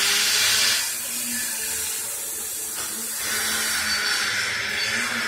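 A loud, steady hiss, strongest in the first second and again from about three seconds in, with a faint low hum underneath.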